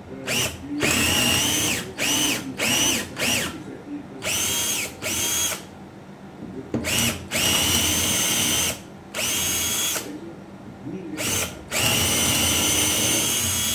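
Parkside PBSA 12 D2 12 V cordless drill-driver, set to drill mode, boring into wood in about ten short runs. Each squeeze of the trigger brings a whine that rises as the motor spins up, then holds steady until it is released.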